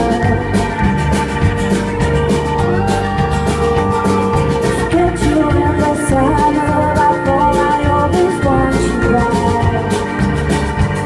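Live band playing a song, with a drum kit keeping a steady beat under sustained instrument lines.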